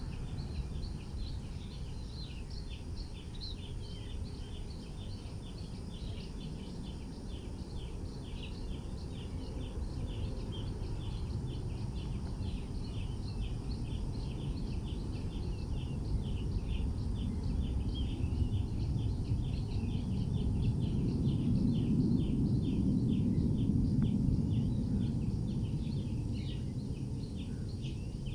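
Airbus A330-223F freighter's twin Pratt & Whitney PW4000 turbofans at takeoff power after liftoff: a low distant rumble that swells to its loudest about twenty seconds in as the jet climbs out, then begins to fade. Rapid high chirping goes on throughout.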